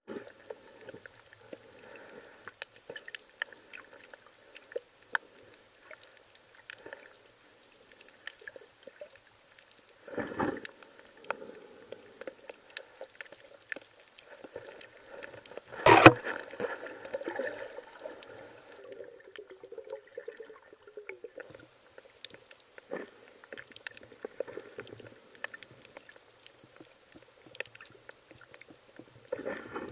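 Underwater sound picked up by an underwater camera: a steady scatter of small clicks and crackles. A few dull knocks stand out, the loudest about sixteen seconds in, with others at about ten seconds and near the end.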